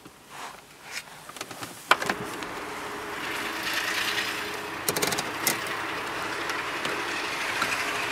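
A click about two seconds in, then the car's ventilation fan blowing a steady rush of air out of the dashboard vents, with a few plastic clicks around five seconds from the vent louvres being moved.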